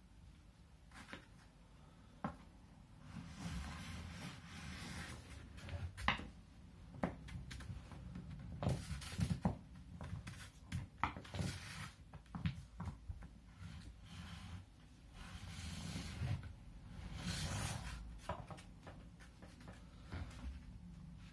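Homemade cardboard-tube drawing machine being pulled and rolled across paper on a wooden board: irregular scraping and rustling with scattered light knocks as the tube bumps and is handled.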